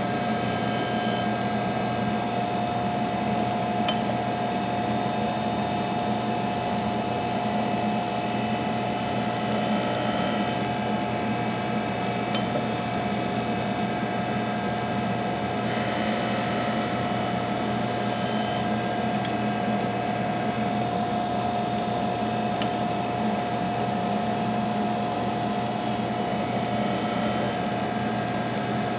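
Grinding wheel sharpening the teeth of a milling cutter one at a time over a steady motor whine. A high grinding hiss comes and goes in stretches of a few seconds as the wheel touches the tooth edges, and there are three single sharp clicks.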